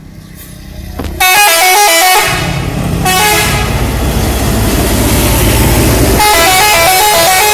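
Bus 'telolet' musical horn playing a quick tune of rapidly alternating notes about a second in, and again near the end, over the low running of the bus's engine.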